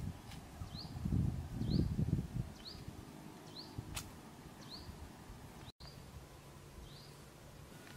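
Grass and brush rustling under footsteps for the first two seconds or so. A short, high, rising chirp repeats about once a second throughout, with one sharp click about four seconds in.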